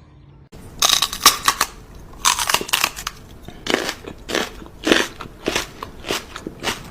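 Repeated loud crunching, roughly two crunches a second, starting abruptly about half a second in.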